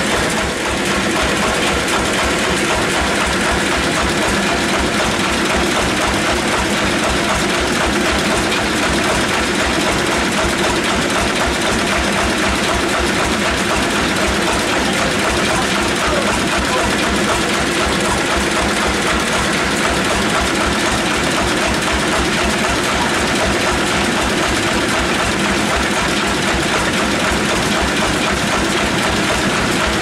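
Band sawmill machinery running steadily with no log in the cut: a continuous mechanical hum with a fast, regular low throb underneath.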